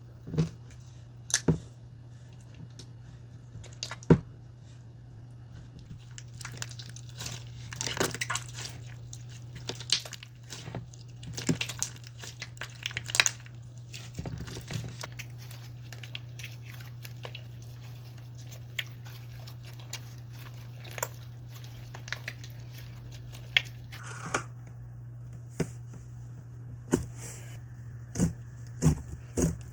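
Slime being handled: squished and pulled apart, giving crackly tearing sounds and scattered sharp pops. A steady low hum runs underneath.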